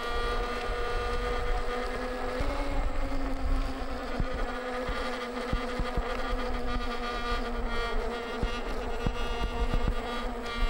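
Veteran Sherman electric unicycle's 2500 W hub motor whining steadily while riding along, the pitch stepping up slightly about two seconds in. Low wind rumble on the microphone and a few light ticks lie underneath.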